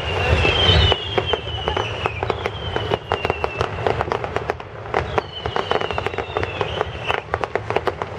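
Fireworks display: a dense run of crackling bangs, with several high whistles that slide slowly down in pitch, one after another. The loudest burst comes just under a second in.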